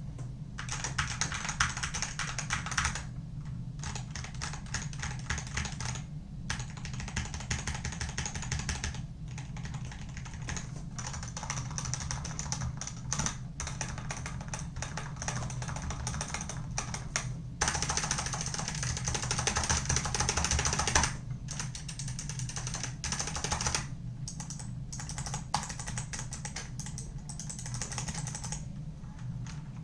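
Typing on a stock Wooting One keyboard, its optical switches unlubricated and its case undamped: a steady clatter of keystrokes with a few short pauses. A faster, louder run of keystrokes comes a little past halfway.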